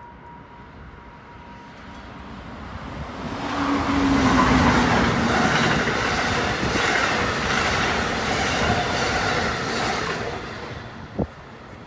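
Amtrak passenger train of silver Amfleet cars passing at speed. Its rumble and wheel noise build up, are loudest from about four to ten seconds in, then die away. There is rhythmic wheel clatter and a brief falling whine about four seconds in.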